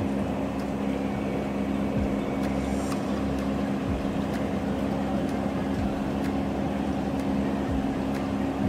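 Sewing machine running steadily, a constant hum.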